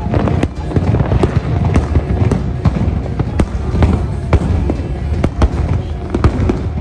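Fireworks going off in quick, irregular loud bangs, several a second, over a deep rumble, with music playing underneath.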